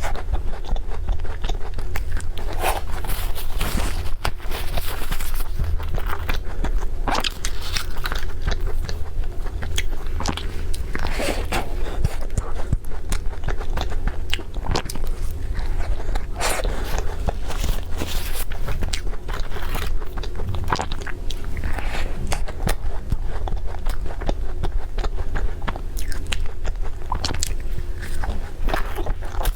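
Close-miked eating: crunchy bites and chewing, one crisp crunch after another, over a steady low hum.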